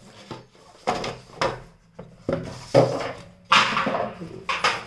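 Plastic charging case of Jabra Elite 65t earbuds being handled: its lid is opened and an earbud is taken out, giving a series of about six sharp clicks and knocks.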